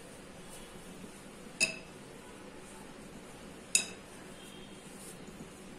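Two sharp glass clinks with a brief ring, about two seconds apart, as a bangle knocks against a glass mixing bowl while a hand works flour and oil together in it.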